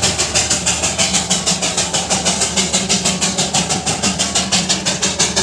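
Darjeeling Himalayan Railway toy-train steam locomotive working, a fast even beat of about six hissing steam puffs a second over a steady low hum.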